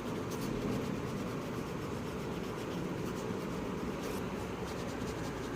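Soft rubbing of colouring strokes on paper over a steady background hiss.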